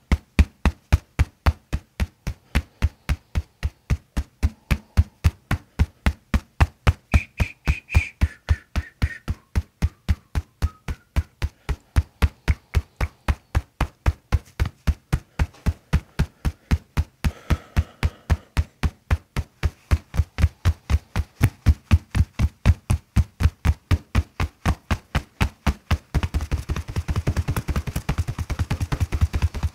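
Hands striking a person's back in rapid percussive massage (tapotement), with an even run of sharp slaps at about three a second. Near the end the strikes come faster and closer together.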